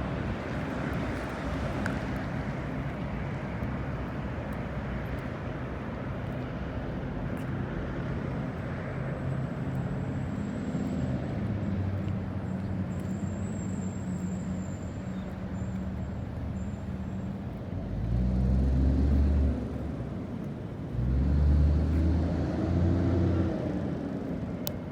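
Road traffic from a nearby street: steady tyre and engine noise with a low engine hum. Two louder, deeper vehicle rumbles pass about three quarters of the way in and again shortly after.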